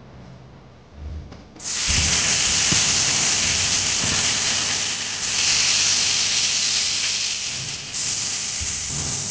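Hot oil sizzling loudly in a wok as dried red chillies, then chopped onion, fry in it; the sizzle starts suddenly about a second and a half in and stays strong, with a few soft thuds as food goes into the pan.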